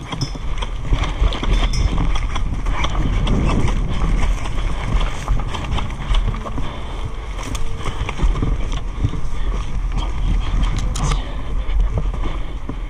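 Running footsteps with kit and a replica rifle jostling against the body-worn camera, and wind buffeting its microphone; a couple of sharp clicks stand out near the middle and towards the end.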